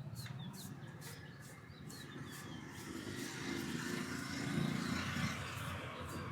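Roadside traffic: a vehicle engine swells and passes in the second half, with small birds chirping briefly near the start.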